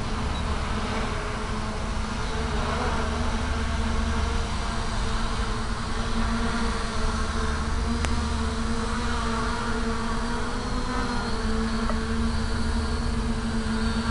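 A 650-size quadcopter's motors and propellers buzzing steadily as it descends, the pitch wavering slightly about two-thirds of the way through, with a single brief click about halfway.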